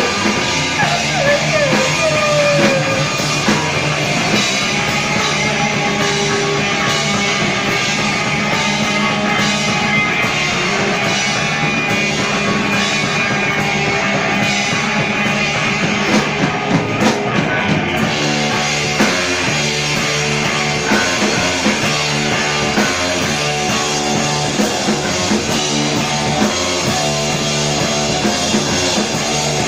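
Rock band playing live and loud, with drums and guitar, continuing without a break.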